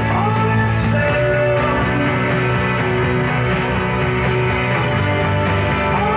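Rock music with guitar and a singing voice, playing at an even level.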